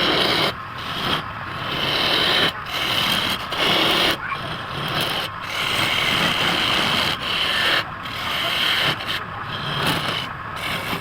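Wood turning on a lathe while a tool works it: a rasping scrape that comes in passes, broken by frequent short pauses.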